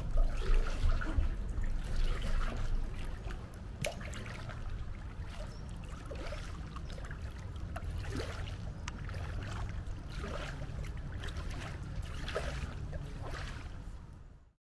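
Kayak paddling: the paddle blades dip in and water trickles and drips off them in repeated strokes, over a steady low rumble. The sound fades out near the end.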